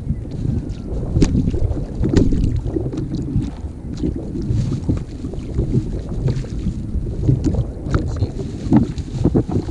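Wind buffeting the microphone in a steady low rumble, with scattered knocks and rustles of handling aboard a sit-on-top fishing kayak.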